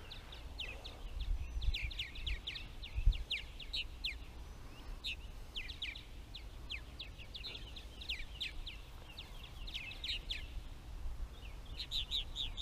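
Purple martins calling around their nest house: a steady stream of short, down-slurred chirps. A low rumble runs underneath, with a single thump about three seconds in.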